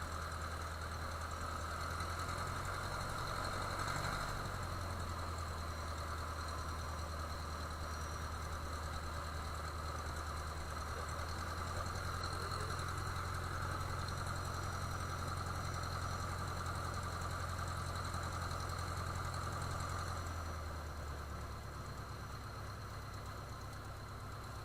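Cessna 150F's four-cylinder Continental O-200 engine and propeller running steadily at low power. About three-quarters of the way through, the engine note drops and it gets slightly quieter as the power is brought back.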